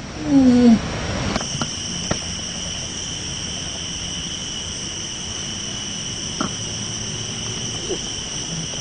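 A short falling vocal cry, then a steady high-pitched insect drone that starts abruptly about a second and a half in and holds on evenly, with a few faint clicks.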